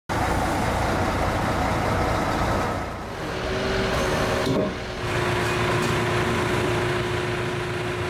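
Heavy diesel engine of a truck-mounted mobile crane running steadily under a lift, with a steady hum joining about three and a half seconds in.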